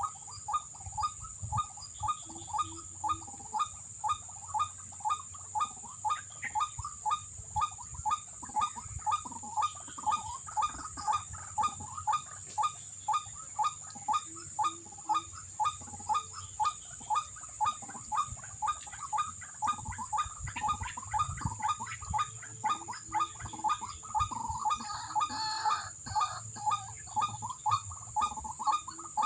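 White-breasted waterhen (ruak-ruak) call repeating steadily at about two calls a second, played through a portable speaker as a lure for the snare traps.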